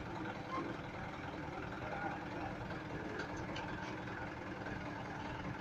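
Truck engine running steadily at low revs, a constant low rumble with a few faint ticks.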